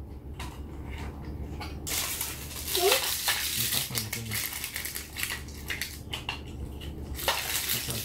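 Hard plastic parts of a toy RC monster truck clattering and clicking as its body pieces are handled and fitted by hand, with rougher stretches of rattling in the middle and near the end.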